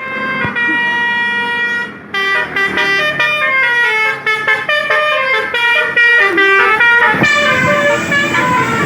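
Indonesian bus 'basuri' musical air horn playing a tune: a chord held for about two seconds, then a quick run of changing notes, with another tune taking over about seven seconds in.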